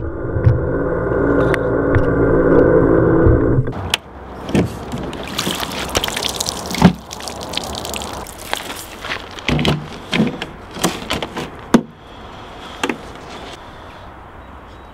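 A small motor hums steadily for about four seconds, then cuts off. Water then sloshes and splashes, with sharp knocks, and settles to a faint hiss near the end.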